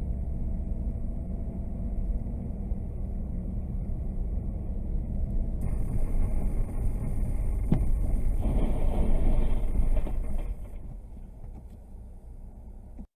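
Road and tyre noise of a car driving on a snowy highway, heard inside the cabin: a steady low rumble. There is a sharp click about eight seconds in and a louder noisy stretch around nine to ten seconds, after which the rumble drops away as the car slows right down.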